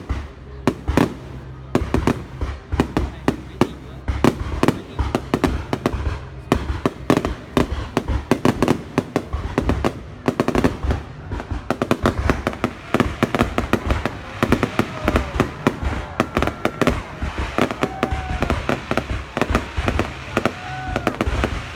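Fireworks display going off: a rapid, continuous barrage of bangs and crackling reports, many overlapping.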